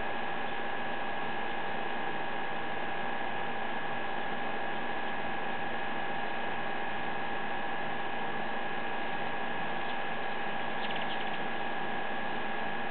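A steady machine-like hum over hiss, with two unchanging high tones, holding level throughout; a faint brief ticking near the end.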